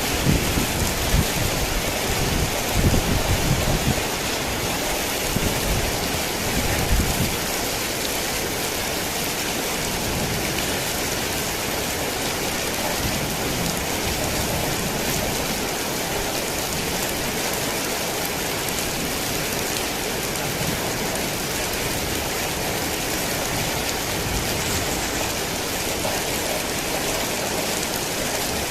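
Heavy rain falling steadily, a dense even hiss of drops. A low, uneven rumble sits under it for the first seven seconds or so, then dies away.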